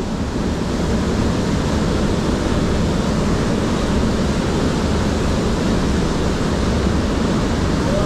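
Fast river water rushing, a steady, unbroken noise that fills the gully.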